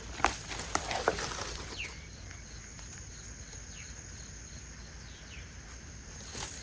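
Quiet countryside ambience: a few sharp snaps or knocks in the first second or so, then faint short chirps of a bird over a steady faint high tone.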